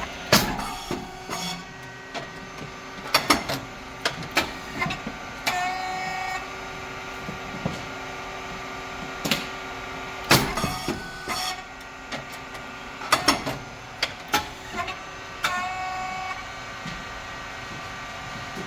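Puffed rice cake machine running through its press cycles: a steady motor and pump hum under repeated sharp bangs and clacks as the heated moulds pop the cakes and open. A short squealing tone comes in each cycle, and the pattern repeats about every ten seconds.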